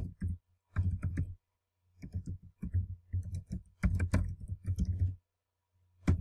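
Typing on a computer keyboard: quick runs of key clicks with short pauses between them, over a faint low steady hum.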